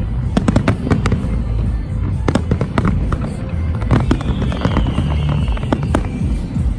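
Fireworks bursting in rapid, irregular bangs and crackles, with music playing underneath.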